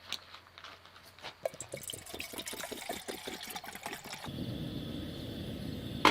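Liquid dripping and trickling in quick small drops, then pouring in a steady rush from about four seconds in, with a sharp click near the end.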